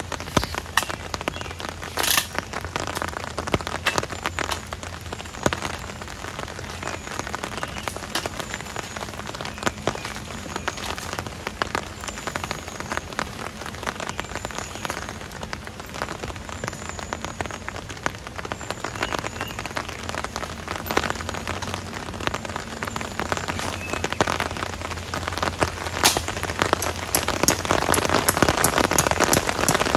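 Heavy rain falling on a surface, a dense hiss of many separate drop hits, growing louder in the last few seconds.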